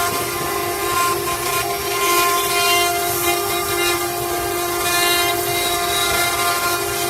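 CNC router spindle running at a steady high whine while it cuts wood, with a hiss over it.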